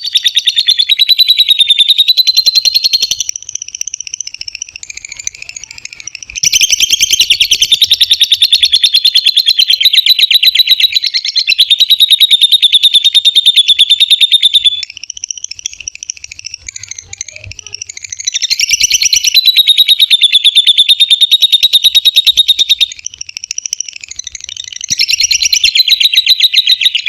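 Lovebird singing long, rapid chattering trills. There are four loud runs lasting from about two to eight seconds each, with quieter chattering between them.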